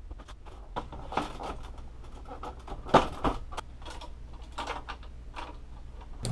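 Irregular clicks and knocks of hard plastic printer parts being handled and fitted, with one sharper knock about three seconds in. The parts are the scanner unit and housing of an Epson WorkForce WF-3640.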